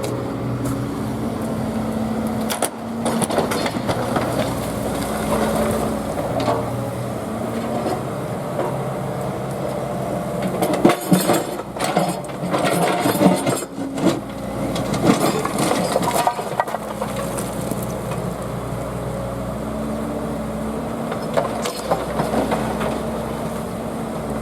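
Diesel engine of a digger running steadily under load, with loud irregular clatter and scraping of broken concrete slabs in the middle stretch as the concrete is broken up and moved.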